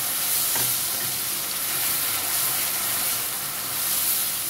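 Chopped onions, tomatoes and ginger-garlic paste frying in oil in a stainless steel pan, a steady sizzle, while a wooden spatula stirs through the masala.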